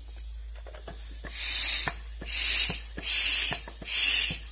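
Hand pump inflating a balloon: four hissing strokes of air, about one a second, starting about a second in.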